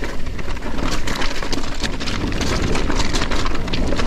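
Mountain bike descending a wet, rocky trail: tyres rolling and bumping over loose stones and the bike rattling. The result is a loud, steady rumble full of quick knocks and clatters.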